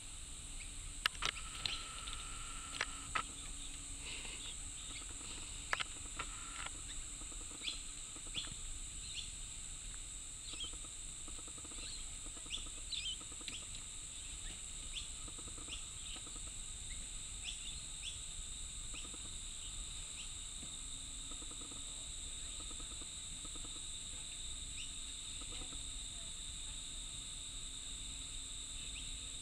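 Outdoor garden ambience: a steady high insect drone with many short bird chirps scattered through it. A few sharp taps in the first seven seconds are the loudest sounds.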